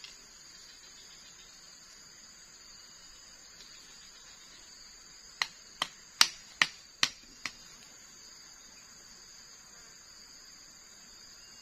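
Six sharp knocks in about two seconds, a little past the middle: a bamboo stake being struck on its top with a tool to drive it into the soil. A steady, high insect chirring carries on throughout.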